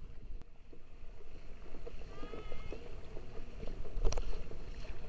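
Water rushing and splashing around inflatable kayaks moving fast through choppy sea, with wind on the microphone. One sharp splash or knock about four seconds in.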